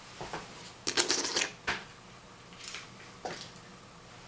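Plastic clicks and rattles of a small portable radio being handled and its controls worked: a quick run of clicks about a second in, then a few single clicks.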